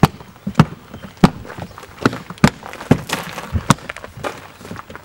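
Plastic latches on a Pelican 1780 hard case being snapped open one after another: about ten sharp clicks, irregularly spaced.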